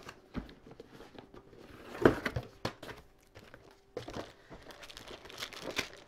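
A CPU cooler's packaging being handled and unpacked by hand: crinkling and rustling, with a sharp knock about two seconds in and another around four seconds.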